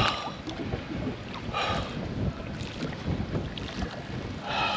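Water sloshing against the side of a small boat where a large snook is held in the water, with wind rumbling on the microphone.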